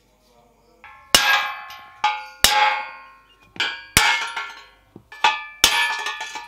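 A steel rod is struck down through a bike frame's head tube to knock out the headset cups, giving a series of sharp metal knocks that ring after each hit. There are about four heavy blows, roughly one every one and a half seconds, with lighter taps in between.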